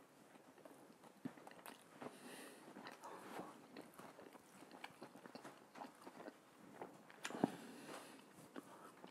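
Faint chewing of a mouthful of Italian sub: soft, scattered wet mouth clicks, with a louder one about seven and a half seconds in.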